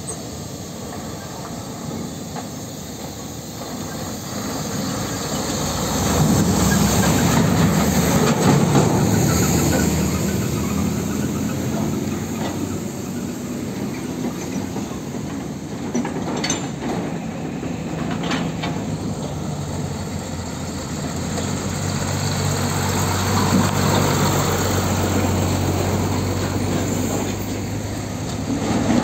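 Heavy diesel tractor trucks pulling empty flatbed and skeletal container trailers past one after another, their engines running low and their trailers rattling over rail tracks set in the road. The noise swells about six seconds in and again near the end, with a few sharp knocks around the middle.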